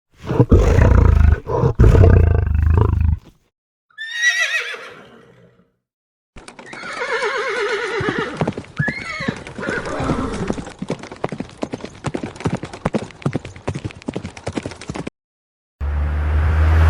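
A series of sound-effect clips: a loud low rumble with knocks, then a horse whinnying in a falling, wavering call, then a long run of horse hooves clip-clopping with another neigh. Near the end a new loud low sound begins.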